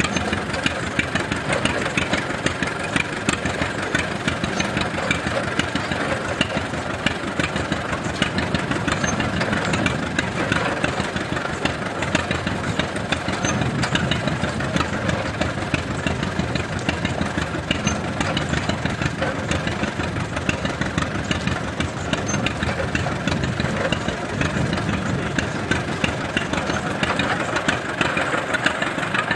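Engine running steadily under belt load, driving an antique John Deere stationary hay press.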